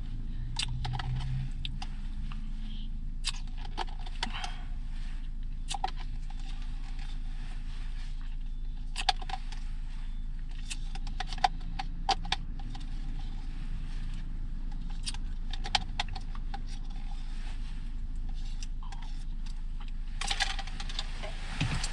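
Steady low hum inside a parked Honda N-BOX cabin, with scattered light clicks and taps from small objects being handled, and a short rustle near the end.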